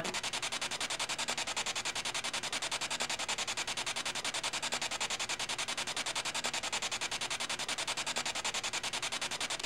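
Spirit box sweeping through radio stations: a steady, choppy burst of static at about ten pulses a second.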